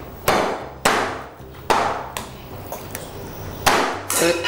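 Meat cleaver chopping a raw lamb shoulder into chunks on a wooden cutting board: about five sharp chops, irregularly spaced, each with a short ring.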